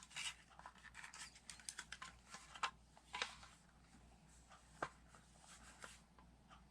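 Small plastic toy pieces clicking and tapping as they are handled, a quick run of light taps at first, then a few scattered clicks.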